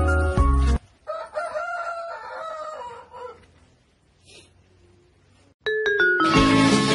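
Music cuts off, then a single long animal call of about two seconds, wavering in pitch and falling at the end. After a near-quiet stretch, music starts again near the end.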